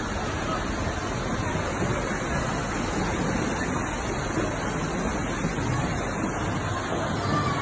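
A torrent of floodwater rushing down a street, a steady churning roar of water.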